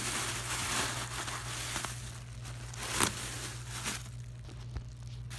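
Thin plastic shopping bag crinkling and rustling as it is lifted out of a cardboard box and handled, with one sharper crackle about three seconds in.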